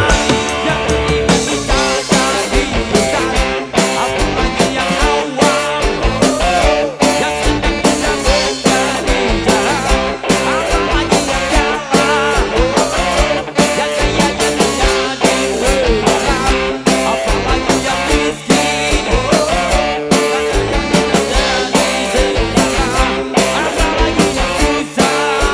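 Live band music, loud and continuous: electric guitars, keyboard, and a drum kit with hand drums playing a steady beat.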